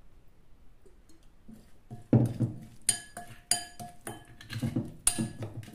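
Metal spoon stirring chicken in a spiced marinade in a glass bowl, knocking against the glass in ringing clinks about twice a second from about two seconds in.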